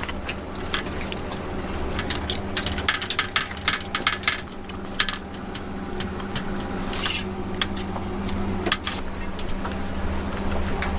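Food-preparation handling noises: a run of sharp clicks and light clatter of utensils over a steady low hum, with a short hiss about seven seconds in.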